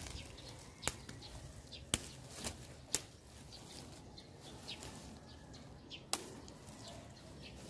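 Faint rustling of moringa (malunggay) branches and dry undergrowth, broken by several sharp snaps or clicks: four clear ones, the first three about a second apart and the last about six seconds in.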